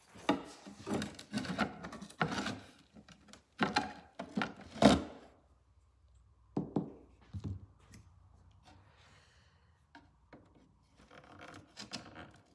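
Pry bar and flat blade working the old nailed wooden panels of a clock case base: a run of sharp knocks, creaks and scrapes as nails and panels are prised loose, loudest about five seconds in, then quieter scattered scraping and clicks.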